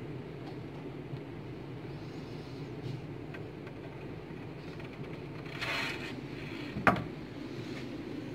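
Steady low room hum, with a brief rustle a little before six seconds in and a single sharp knock about seven seconds in.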